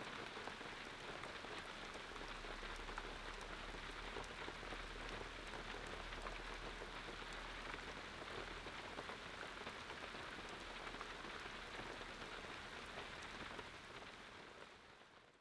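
Steady rain, a soft hiss with fine pattering drops, fading out near the end.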